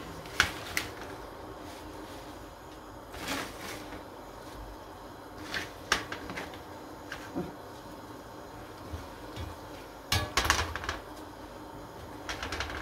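Handfuls of fresh jute mallow (mulukhiyah) leaves being picked out of a plastic colander and dropped into a stainless steel pot: scattered rustles and light clicks and knocks, with a busier cluster of them about ten seconds in.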